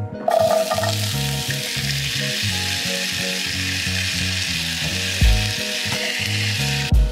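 Chopped mushrooms, celery and tomato hitting hot oil in a cast-iron skillet, sizzling loudly from just after the start until the sizzle cuts off suddenly near the end, with a low thump about five seconds in. Background music with a bass line plays underneath.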